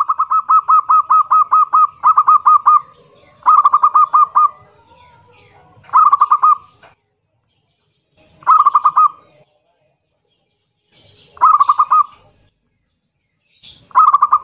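Zebra dove (perkutut) cooing loudly in its rapid, rolling 'kerot nguwor' style, with fast staccato notes. It opens with a long run of notes, then repeats in short bursts about every two and a half seconds.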